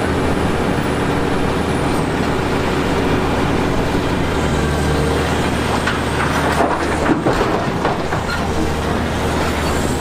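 Heavy machinery at work: a large excavator's diesel engine running steadily, with a few knocks of rock about six to seven seconds in.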